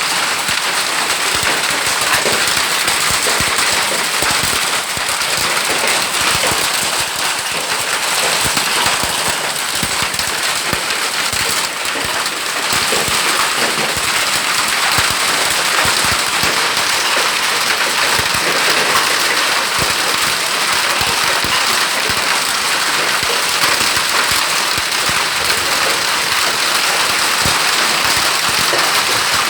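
Heavy hail falling with rain: a dense, steady clatter of hailstones striking hard surfaces.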